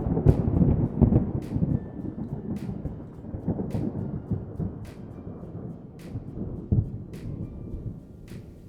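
A deep rumble that breaks in suddenly and fades away over several seconds, with faint sharp ticks about once a second.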